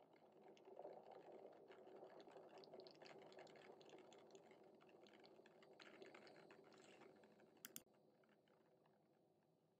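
Near silence: faint room noise with scattered light ticks and a sharper double click about three-quarters of the way through.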